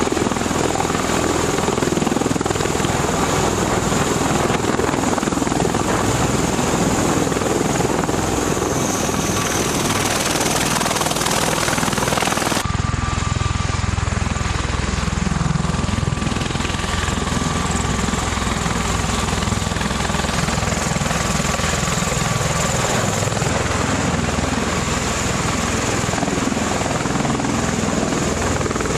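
Aircraft engine noise, loud and steady, with a faint high whine. About twelve seconds in it changes abruptly to a deeper, heavier rumble.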